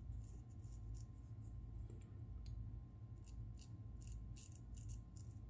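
Parker adjustable shavette razor blade scraping through lathered stubble on the upper lip: faint short scratchy strokes, a few at first and then many in quick succession in the second half.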